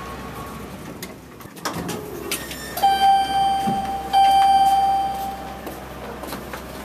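Elevator arrival chime sounding twice, two long steady dings of the same pitch, as the elevator doors slide open.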